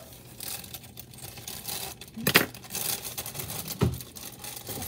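Clear plastic bag of cake mix crinkling as it is handled and pulled open, with two louder bumps about a second and a half apart.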